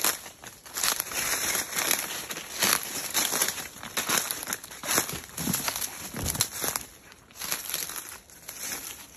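Footsteps crunching through dry leaf litter and undergrowth, an irregular crunch about every half second.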